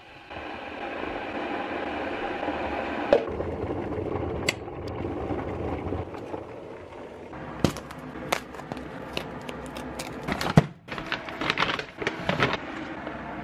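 Stainless electric kettle heating water with a steady rushing noise. After about seven seconds come several sharp clicks and knocks, then the crinkling of a plastic bag of whey protein near the end.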